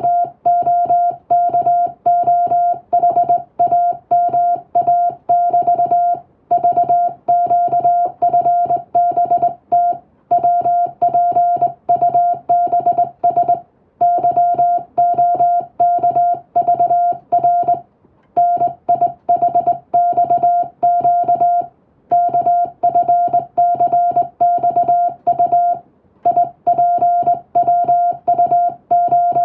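Morse code (CW) tone keyed by hand, sending English text: a single steady beep switched on and off in rapid dots and dashes, with short pauses between groups.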